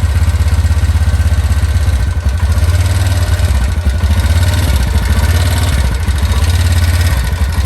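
TVS Ntorq 125 scooter's single-cylinder engine idling steadily, with the fast tik-tik ticking that is a common Ntorq fault, associated with the starter one-way clutch.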